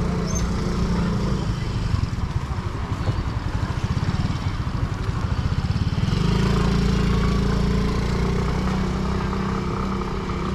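An engine running close by with a steady low chugging, growing louder about six seconds in and then slowly easing off.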